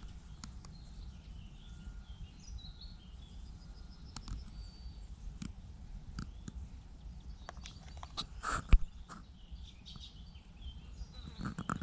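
Outdoor ambience: a steady low rumble with faint bird chirps and scattered small clicks, and one sharp knock about eight and a half seconds in.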